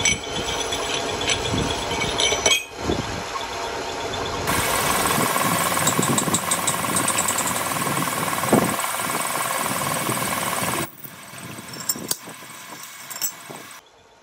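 Metal lathe running with a steel truck axle spindle spinning in its chuck: a steady mechanical din with a few sharp knocks. The sound changes abruptly several times and drops much quieter about three-quarters of the way through.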